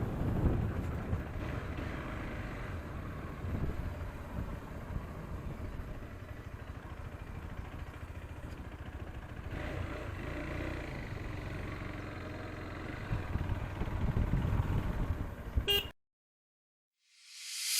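Wind and road noise buffeting the camera microphone while riding a KTM 390 Adventure motorcycle, its single-cylinder engine running underneath. The sound cuts off abruptly near the end.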